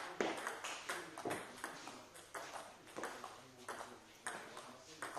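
Table tennis rally: the ball clicking sharply off the bats and bouncing on the table, about two clicks a second, with fainter clicks from rallies on neighbouring tables in the hall.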